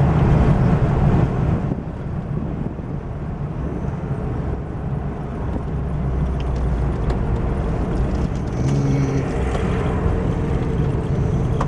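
Car engine and road noise from inside the moving car. The sound drops noticeably about a second and a half in, then slowly builds again.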